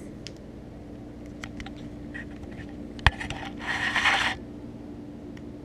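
Small camera handled and set down on a hard floor: a single sharp knock about three seconds in, then a short scraping rustle. A steady low hum runs underneath.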